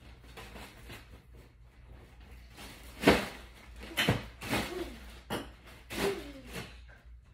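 Pillow being worked into a pillowcase: fabric rustling and handling, with a sharp knock about three seconds in and a few smaller knocks. A few short voice sounds come near the end.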